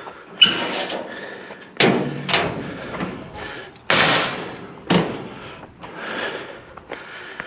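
A heavy scrap-metal piece being tipped and shoved, banging and thudding about five times, with scraping and strained breathing between the hits.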